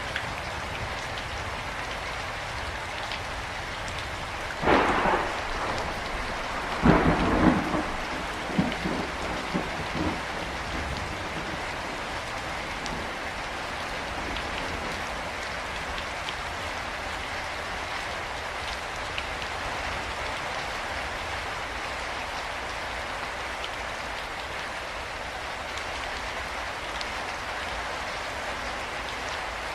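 Steady heavy rain falling, with a sharp thunderclap about four and a half seconds in and a second, louder one about seven seconds in that rumbles on for a few seconds before fading back into the rain.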